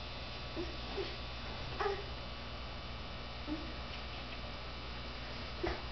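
A steady low electrical hum with a few short squeaks over it, the loudest about two seconds in and near the end.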